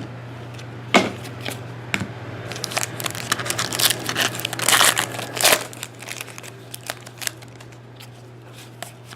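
Foil trading-card pack wrapper being torn open and crinkled: a sharp snap about a second in and another at two seconds, then a dense stretch of crinkling that dies down after about six seconds, over a steady low hum.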